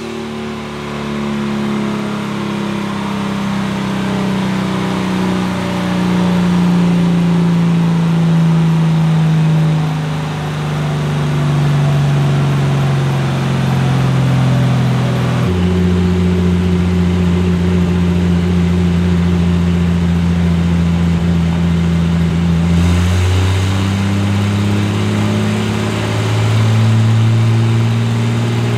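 Turbocharged BMW M20 straight-six in an E30 race car running steadily at part throttle. Its note sinks slowly for about fifteen seconds, drops suddenly to a steady lower pitch, and rises a little again about eight seconds later.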